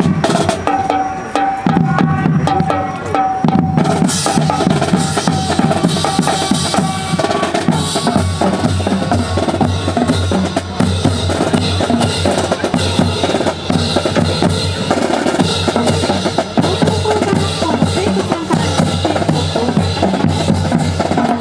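Marching drum corps playing snare and bass drums in a steady, dense cadence. A steady held tone sounds over the drums for about the first seven seconds.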